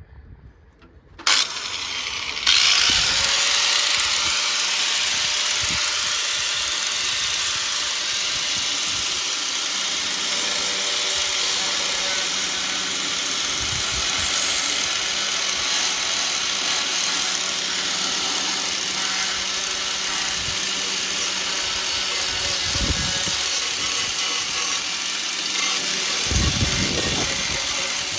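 Angle grinder grinding paint back to the steel on a car's inner wing panel: it starts about a second in, comes up to full speed and runs with a steady loud grinding hiss.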